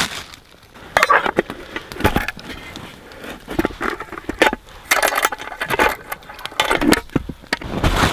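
Small metal camp cook pot and its lid being handled, with irregular clinks, knocks and scrapes of metal on metal.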